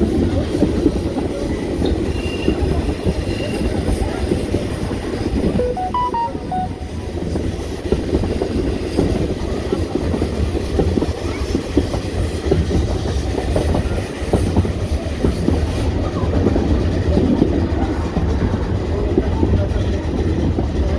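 Metre-gauge heritage train carriages running on the track, heard from aboard: a steady low rumble with the clickety-clack of the wheels.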